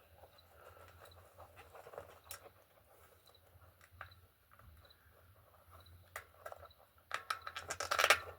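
A rubber inner tube being tucked into a bicycle tire on the rim by hand: soft rubbing and light scraping with a few scattered clicks, then a louder stretch of crinkly rustling and clicking near the end.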